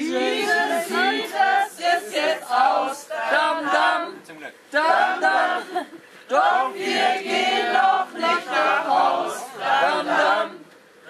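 A group of party guests singing together, in sung phrases with brief pauses between them.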